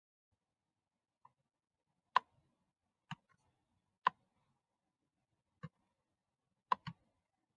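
Computer mouse button clicking about seven times at irregular intervals, with two quick clicks close together near the end.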